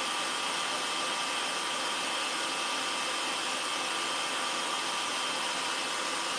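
Electric stand mixer running steadily with a steady high motor whine over a whirring noise, its whisk beating egg whites in the bowl for meringue.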